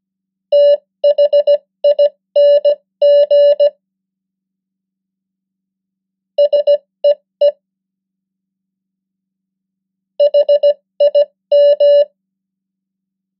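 Morse code practice tone sent at 15 words per minute: a steady electronic beep keyed into short dots and longer dashes. It spells out three common English words, separated by pauses of about three seconds.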